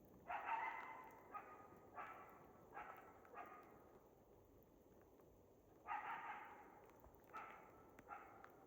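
Faint, dog-like barking: about eight short barks in two bunches, one near the start and one from about six seconds in.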